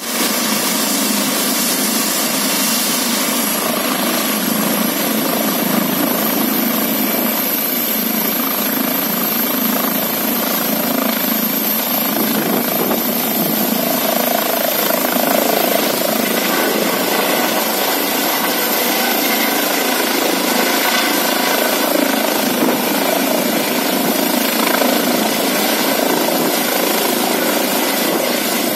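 Eurocopter EC135 helicopter's rotors and twin turbines at takeoff power as it lifts off, hovers low and climbs away. The rotor noise is loud and steady, with a thin high turbine whine that rises slightly a few seconds in and then holds.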